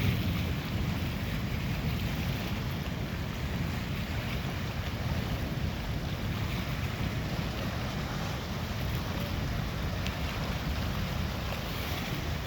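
Steady wind buffeting the microphone, a low rushing rumble with no sudden claps or cracks.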